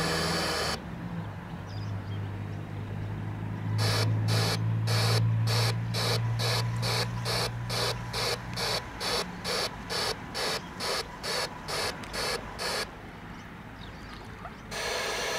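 Live-steam engine of a model paddle steamer chuffing, its exhaust puffing out in a steady rhythm of about three hissy puffs a second, with a continuous steam hiss at the start and again near the end. A low steady hum runs underneath for several seconds in the middle.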